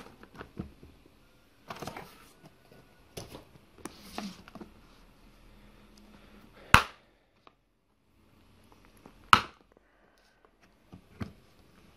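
A clear plastic storage case being handled: a few soft knocks and rubs, then two sharp snaps about two and a half seconds apart as its snap latches are flipped open.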